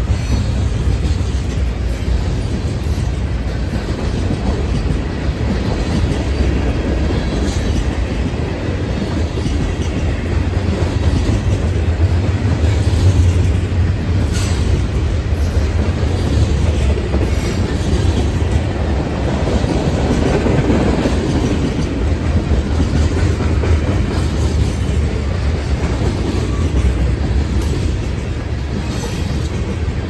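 Freight train cars rolling past at speed: a steady low rumble with wheels clicking over the rail joints.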